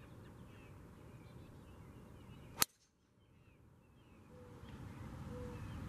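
Golf driver striking a teed ball: one sharp crack about two and a half seconds in.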